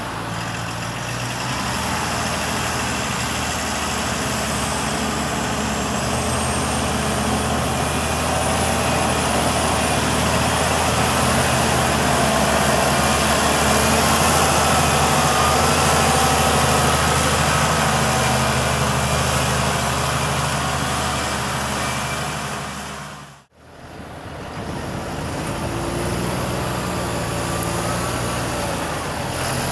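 Deutz-Fahr Agrotron 7250 TTV tractor's diesel engine running steadily as it pulls a slurry tanker through a muddy field, growing louder as it passes close and then fading. About two-thirds of the way in the sound cuts off suddenly, and another Deutz-Fahr Agrotron tractor's engine takes over.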